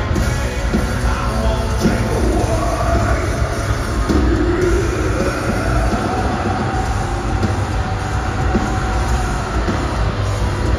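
Heavy rock band playing live at loud volume through a large PA: down-tuned guitars, bass and drums, heard from the audience with a bass-heavy, rumbling low end.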